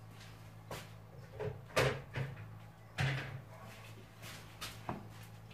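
Kitchen handling noises: a handful of separate knocks and clatters as a cupboard and dishes are handled, the loudest about two and three seconds in, over a faint steady low hum.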